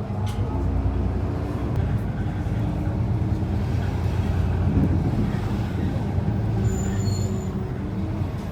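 Steady low rumble of a motor vehicle running, with a brief high-pitched tone about seven seconds in.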